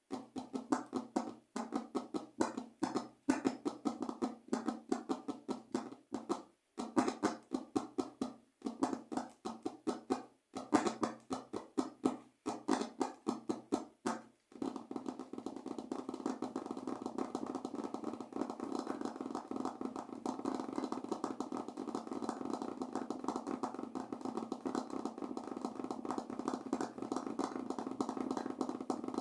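Fingers tapping rapidly on a surface in quick runs broken by short pauses. About halfway through, the tapping turns into continuous fast drumming with no breaks.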